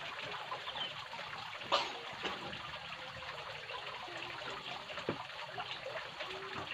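Water trickling steadily at the edge of a pond, with a sharp click about two seconds in and a fainter one near the end.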